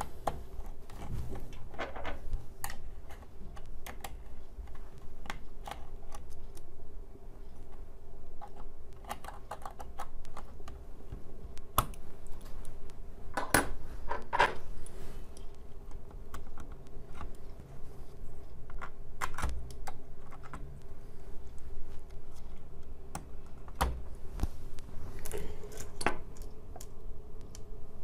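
Irregular clicks, taps and light knocks of hands handling a Lexar SSD and the plastic base of a Lenovo G50-70 laptop while seating the drive in its bay, with several louder knocks scattered through.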